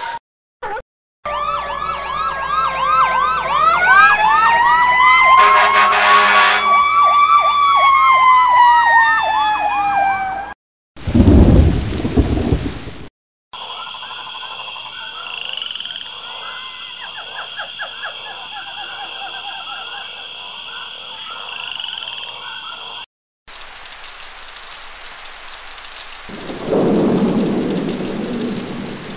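A run of separate ambience sound effects, each cut off by a short silence. First, several sirens wail together, rising and then slowly falling in pitch. Then a short, loud clap of thunder, a chorus of frogs croaking over a steady high trill, and steady rain with a rumble of thunder near the end.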